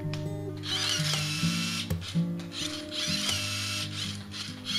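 Background music with steady held low notes, and over it several short spells of fast mechanical rattling from the moving parts of a tabletop chain-reaction contraption.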